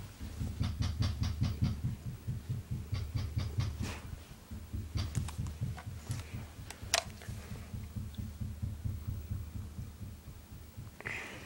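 A cat purring right against the microphone as it is petted: a steady low throbbing that stops near the end, with scattered light clicks and rustles of handling.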